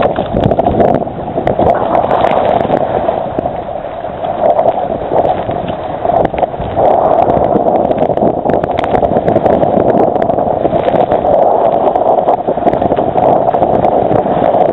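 Water rushing and splashing along the hull of a Hobie Mirage Adventure Island sailing trimaran moving fast through choppy sea, with wind buffeting the microphone. Loud and continuous, with scattered knocks and slaps of spray.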